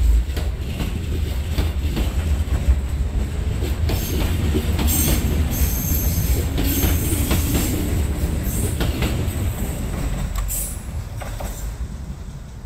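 JR 205 series electric commuter train running past close by: a heavy rumble of wheels on rail with repeated clacks over the rail joints and high metallic wheel squeal in the middle. It fades as the train pulls away near the end.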